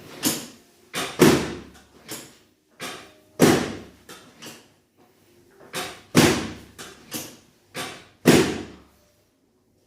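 A series of about a dozen sharp thumps and knocks at an uneven pace, four of them heavier than the rest, each with a short echo in a small room.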